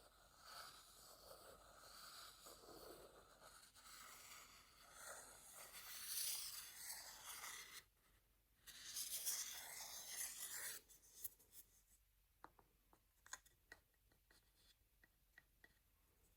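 Makeup brush bristles brushing over a wooden bowl: a soft, steady rough rustle with a few louder passes. About eleven seconds in the brushing stops and only a handful of light, scattered clicks remain.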